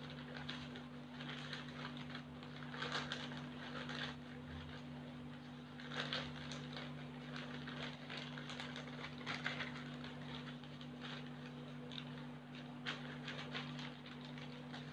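Crumpled newspaper tissue and a plastic zip-lock bag rustling in irregular bursts as the paper is packed into the bag, over a steady low hum.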